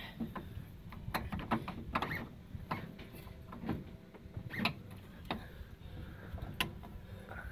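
Scattered metal clicks and knocks, irregularly spaced, as the rear trailing arm of a Polaris RZR 900XP is pulled out and the new rear axle is worked into place.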